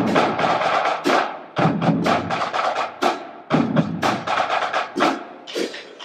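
A school marching band playing a tune: saxophones and brass in loud, punchy chords of about a second each, separated by short breaks, over marching bass drums and sharp percussion hits.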